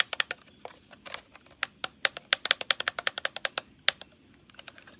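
Rapid sharp clicks and taps of a small hard-plastic device being handled: the Blink Video Doorbell's housing and battery compartment. The clicks come thickest about two to three and a half seconds in and stop about four seconds in.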